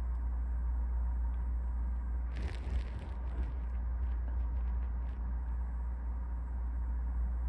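A steady low hum, with a brief rustle about two seconds in followed by a few faint crackles.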